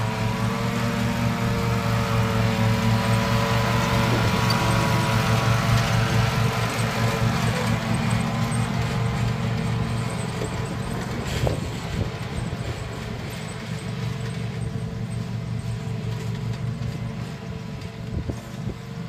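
Ride-on lawn mower engine running steadily as the mower drives across the lawn. It grows quieter in the second half as the mower moves away.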